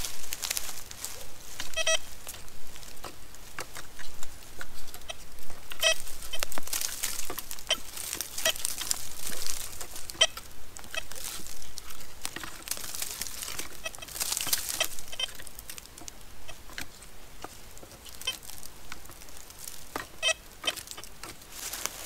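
Metal detector sounding short beeps every few seconds as its coil is swept over the ground, with rustling and crunching of dry grass and brush.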